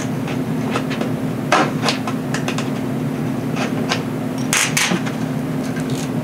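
Sharp, scattered clicks and ticks from a hobby knife cutting and snapping balsa sheeting along a glued joint on a foam wing. The loudest is a pair of clicks a little past the middle, where the knife is set down on a glass tabletop.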